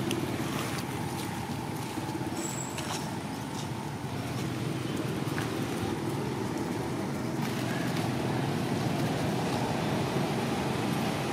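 Steady road traffic noise, with motorbike engines running as they pass along the road.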